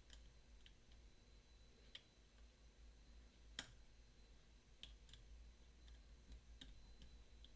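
Faint, scattered small metallic clicks of a lock-picking flag tool working inside a Mottura CP6 dimple lock, with the sharpest click about three and a half seconds in.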